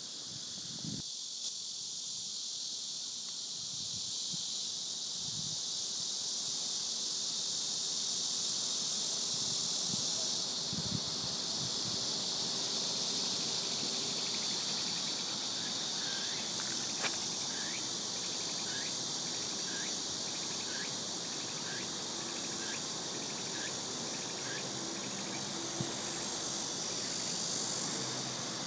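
Steady, high-pitched insect chorus, with a string of short repeated chirps joining in over the second half.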